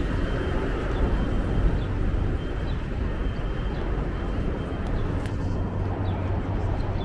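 Busy city street ambience: a steady rumble of traffic with a low hum.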